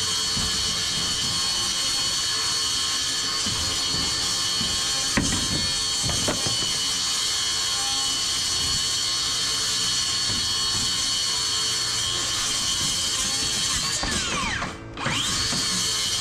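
Electric power tool motor running with a steady high-pitched whine. Near the end it briefly spins down and then back up to speed.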